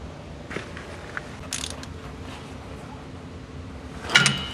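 Ratchet and socket working a 15 mm fuel-tank strap bolt: a few faint metal clicks, then a louder burst of sharp metallic clicking near the end.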